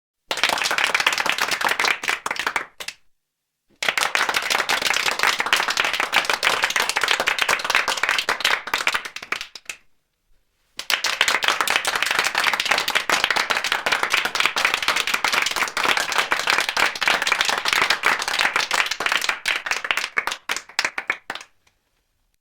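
Meat pies frying in hot oil: dense sizzling and crackling, in three stretches broken by two brief gaps.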